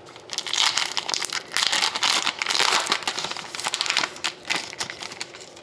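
Wrapper of a 2011-12 Panini Rookie Anthology hockey card pack crinkling as it is slit and torn open and the cards are pulled out, dying down about four and a half seconds in.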